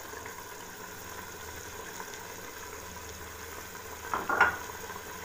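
Mutton sizzling steadily in an aluminium pot over raised heat: its cooking water has dried off, so the meat is starting to fry, with a fresh tomato, ginger and green chilli paste just poured over it. About four seconds in there is a brief clatter.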